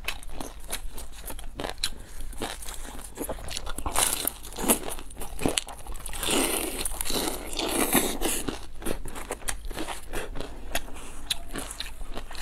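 Close-up eating sounds: crunchy bites and chewing of crisp pan-fried vegetable pockets, the fried crust crackling. The crunching is densest and loudest around the middle.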